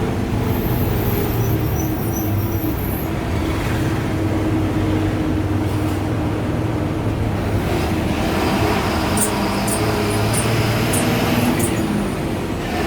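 Ashok Leyland BS4 diesel bus engine running with a steady drone, and a thin high turbo whistle over it near the start and again in the second half, with a few light clicks near the end.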